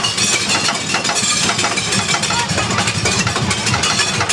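Wooden roller coaster train clattering and rattling along its track, a dense, fast clatter over a steady low rumble.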